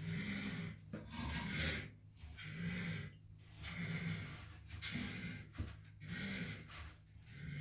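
Rhythmic, raspy snoring-like breaths from an unseen animal under a bathtub, about one a second. Each has a low hum that rises and falls.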